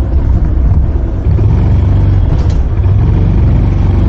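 Honda Super Cub's single-cylinder four-stroke engine running under way, a steady low rumble that eases briefly about a second in, then picks up again.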